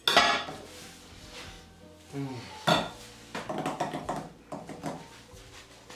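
Metal cutlery clinking and scraping against dishware: a sharp clink at the start, another near the middle, then a run of quicker clinks.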